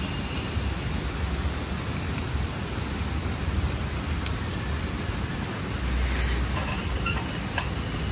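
Split firewood burning in a small folding fire pit: a steady low rush of flame with a few sharp crackles in the second half.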